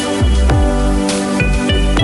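Background music with a steady beat, about two beats a second, under sustained chords.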